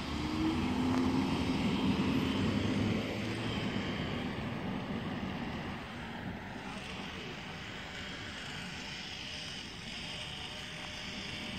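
A Dodge Charger drives past across the intersection, its engine and tyres loudest in the first three seconds, then fading into a steady low rumble.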